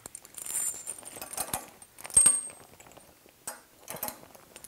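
Steel Pilates springs clinking and jangling as they are hung on the metal frame of a reformer trapeze combination: a run of small metallic clicks and knocks, with one sharp clink about two seconds in that rings briefly.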